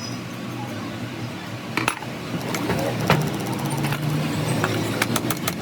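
Small metal parts clinking and tapping over a steady low drone, with a quick run of clicks near the end.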